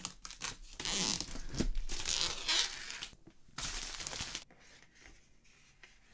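Cardboard lid of a record box set being worked off its base, with cardboard and paper rubbing and crinkling in a long stretch and then a shorter one.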